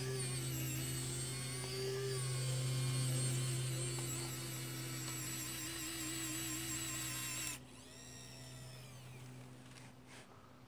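Small electric motor of an RC rollback truck's tilt bed running with a steady whine as it draws the loaded bed forward and down. It cuts off suddenly about seven and a half seconds in, followed by a couple of faint clicks.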